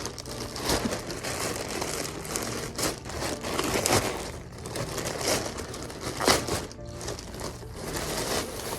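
Plastic parcel packaging being torn open and crinkled by hand in irregular rustles, with a couple of sharper crackles, over background music.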